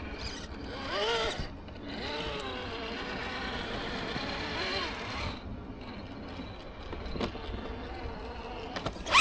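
RC rock crawler's electric motor whining, its pitch rising and falling several times as the throttle is worked, while the wet tyres struggle for grip on the rock.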